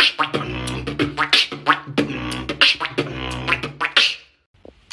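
Beatboxing: a quick rhythm of drum-like clicks and hits from the mouth, with a hummed pitched tone and low bass held underneath. It stops about four seconds in.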